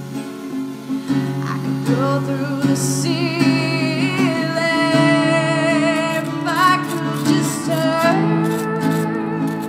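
Background music: a woman singing a slow song over strummed acoustic guitar.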